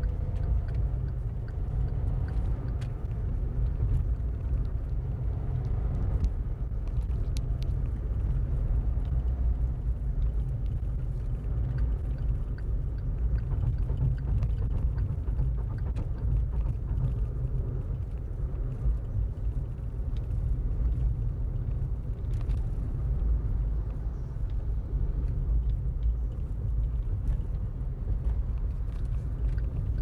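Steady low rumble of a car driving at road speed, heard from inside the cabin: tyre and engine noise with a few faint ticks.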